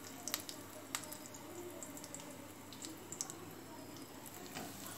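Soft, squishy handling of masala-coated potato slices on a steel plate, with a few faint clicks scattered through it over a low background hiss.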